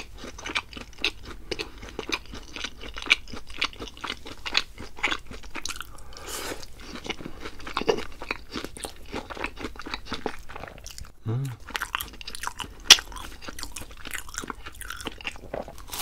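Crunching and chewing of crispy fried food, bite after bite in an irregular stream of sharp crunches. A brief low hum sounds about eleven seconds in, and the sharpest, loudest crunch comes soon after.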